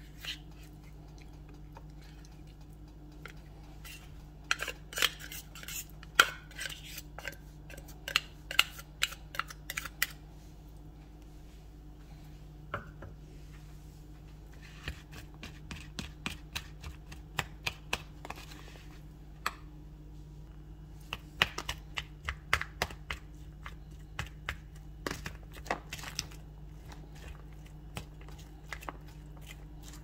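Metal fork scraping canned tuna out of its tin and tapping it off, then clicking and scraping against a plastic tub while stirring tuna, corn and onion. The clicks come in irregular clusters, with a low steady hum underneath.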